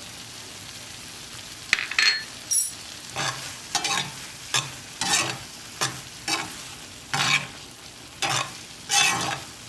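A cooking utensil scraping and stirring thick egg masala around a frying pan, about a dozen strokes starting near two seconds in, over a steady low sizzle of the frying masala. This is the final stir after the pepper powder goes in.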